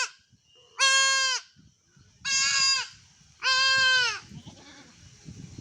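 A young goat kid bleating repeatedly, three high-pitched bleats of about half a second each, while it is held for castration. Low scuffling handling noise follows the last bleat.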